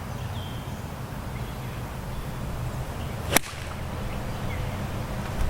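A 9-iron swung at a golf ball: a brief swish, then one sharp click as the club strikes the ball, about three and a half seconds in. Wind rumbles low on the microphone underneath.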